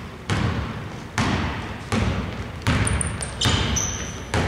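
A basketball being dribbled on a hardwood court, about six bounces at an even pace of a little over one a second. Each bounce echoes through a large, nearly empty hall.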